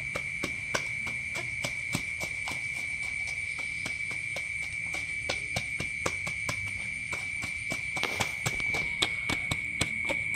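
Gloved hands pressing and turning a basin of small salted lòng tong fish for fermented fish paste, giving many irregular clicks. Under it is a steady high-pitched insect trill, likely crickets.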